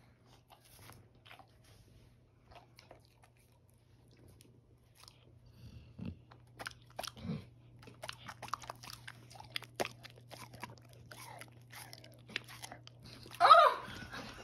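A dog biting and chewing a pineapple slice held out on a stick: faint at first, then quick crunching bites from about six seconds in. A brief, louder pitched sound comes near the end.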